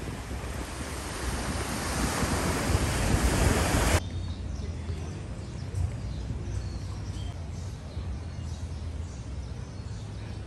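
Small waves washing in over sand and rocks at the shoreline, with wind on the microphone, swelling louder until it cuts off abruptly about four seconds in. A much quieter outdoor background follows.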